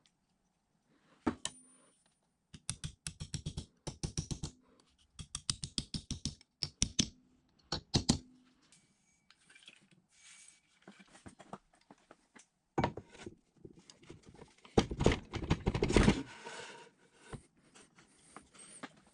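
Light, quick hammer taps in short bursts of about ten a second, driving small drive screws through a nameplate into a cast-iron drill press head. Later comes a louder stretch of metal scraping and knocking as drill press parts are fitted together.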